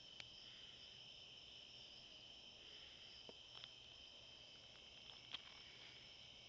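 Faint, steady chorus of night insects: a continuous high trill with no breaks. A few faint clicks are scattered through it, the sharpest a little past the middle.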